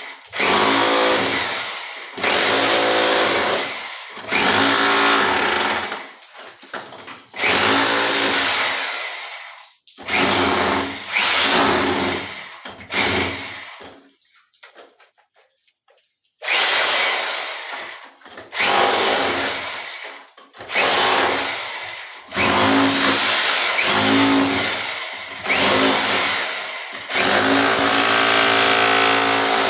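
Total 1500 W electric rotary hammer with a chisel bit, run in short bursts of a second or two, about a dozen times, with a pause of a couple of seconds about halfway. Each burst starts sharply and fades out.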